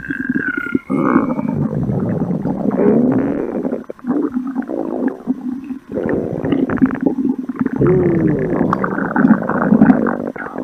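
Growling stomach sound effect: long, loud gurgling rumbles with a warbling, wavering pitch, in three stretches with brief breaks about four and six seconds in. A short falling whine sounds at the very start.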